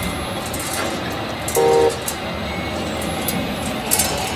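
A short horn toot about one and a half seconds in, over steady background noise, with a few light clicks near the end.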